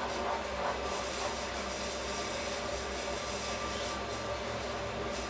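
Wooden spatula stirring and scraping a thick, sticky mixture of coconut, nuts and sugar syrup in a non-stick kadhai, over a steady hiss.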